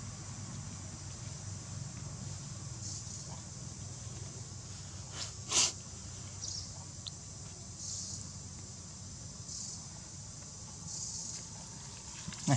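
Insects chirring in short high-pitched bursts every second or two over a steady low hum. A single sharp crackle comes about five and a half seconds in, and a few crackles of dry leaves come near the end as the monkey walks off.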